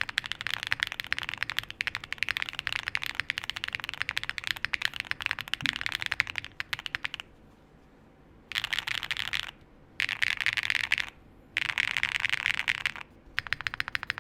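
Typing on a custom 60% mechanical keyboard with Gateron Type R tactile switches, PBT keycaps, a polypropylene plate and a heavy brass-bottomed case: a fast, steady stream of keystrokes. About seven seconds in it stops for roughly a second, then comes back as four short bursts of rapid keystrokes.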